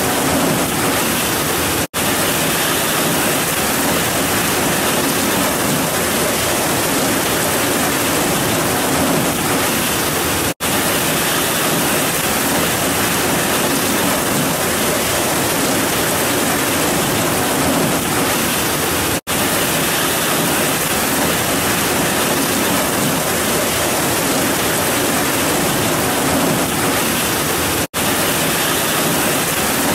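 Heavy rain pouring down in a steady, dense hiss, broken four times by a split-second dropout about every nine seconds.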